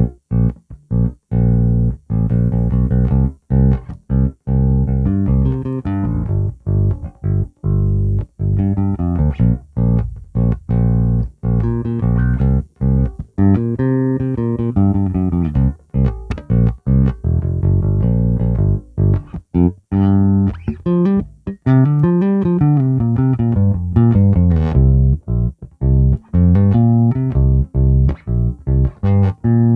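Fender American Original '60s Precision Bass played solo, a long run of separately plucked notes with short gaps between them and quick runs up and down the neck.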